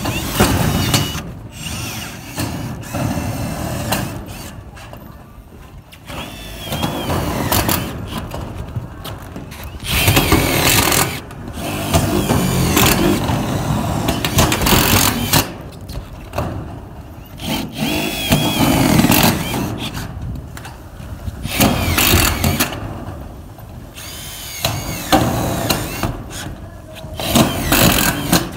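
Cordless screw guns driving self-drilling screws through corrugated metal roofing sheets, in repeated runs of one to three seconds with short pauses between screws.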